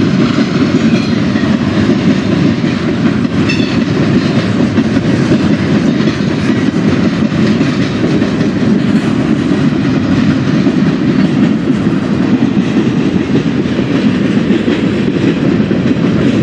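CSX manifest freight train rolling past, a steady, unbroken noise of its cars' wheels running on the rails.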